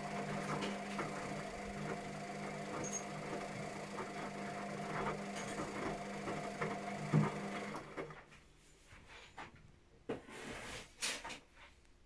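Luxor WM 1042 front-loading washing machine running a quick 30°C wash: a steady mechanical hum that stops abruptly about eight seconds in. After it come a few faint clicks and knocks.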